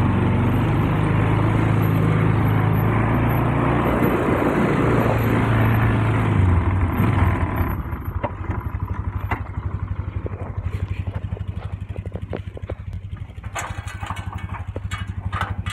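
Polaris 500 ATV engine running while the quad is driven over muddy ground, then dropping to a steady, evenly pulsing idle about eight seconds in. Light clicks and rattles come over the idle near the end.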